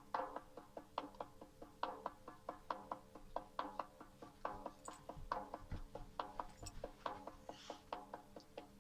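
Shaman's frame drum beaten steadily in a ritual rhythm, about four to five strikes a second with a heavier accent roughly once a second.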